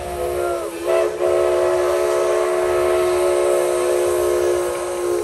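A steam locomotive's chime whistle sounds a short blast that sags in pitch as it ends, then a long, loud, steady blast of several notes at once, about four seconds long.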